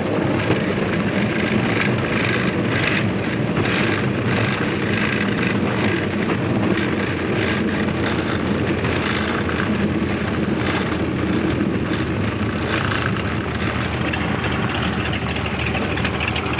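Cessna 210 Centurion's six-cylinder piston engine and propeller running steadily, heard from inside the cabin as the plane rolls along a rough grass strip after landing, with a few short knocks from the ground roll.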